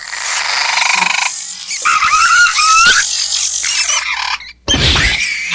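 Compsognathus creature sound effects: a raspy, rattling chitter, then high squealing chirps that bend up and down in pitch. After a brief silence near the end comes a sharp squealing cry over a heavy low thump.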